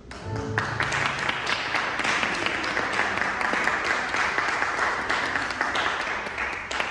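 Audience applauding: dense clapping that starts suddenly and stops near the end.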